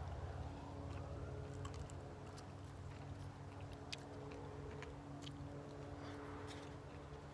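Faint scattered clicks and crackles of crispy fried chicken being handled and chewed, over a steady low hum with a couple of held tones.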